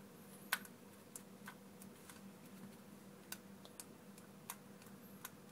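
Faint, irregular light clicks and taps of a small screwdriver and tiny screws being handled on a work surface, about eight over several seconds, over a faint steady hum.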